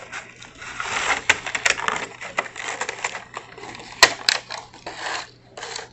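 Clear plastic blister packaging of a Matchbox die-cast toy car crinkling as it is handled, with many sharp clicks and one louder snap about four seconds in.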